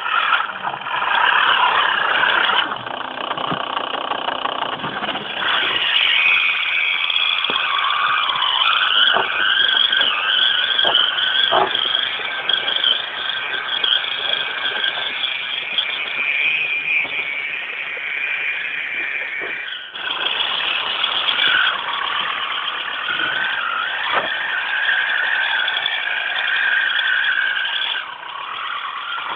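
Electric motor and gear drive of a scale RC rock crawler whining as it crawls over rock, its pitch wandering up and down with the throttle. The sound breaks off and changes abruptly twice, about two-thirds of the way in and near the end.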